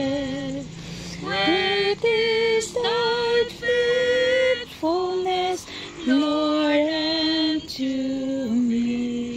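A woman singing a slow worship song, one melody line with long held notes.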